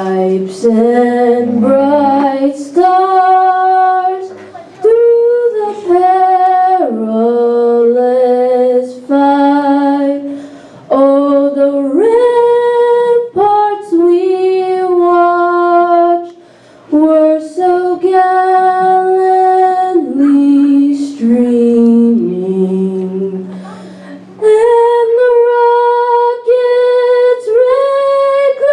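A woman singing solo and unaccompanied into a microphone, holding long, steady notes phrase by phrase with short breaths between phrases.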